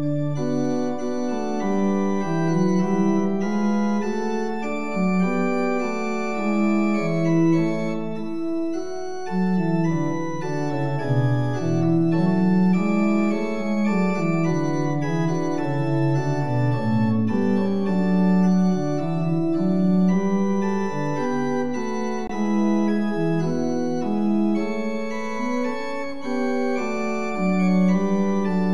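Church organ playing a slow prelude in sustained chords, each note held and joined smoothly to the next, with no breaks.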